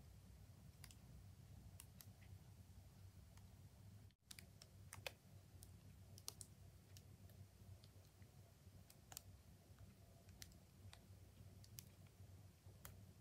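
Faint, irregularly spaced light clicks and ticks over a low steady hum, cutting out briefly about four seconds in.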